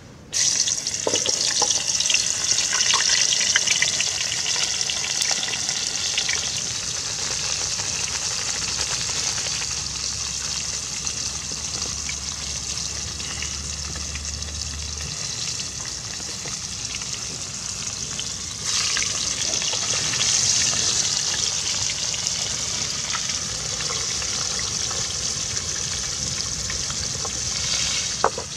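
Pejerrey fish frying in hot oil: a steady sizzle that starts abruptly and gets louder again about two-thirds of the way through, with a sharp click near the end.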